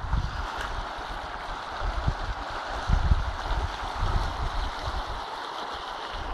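Fast-flowing river water rushing steadily below a footbridge, with a few low rumbles on the microphone, the strongest about three seconds in.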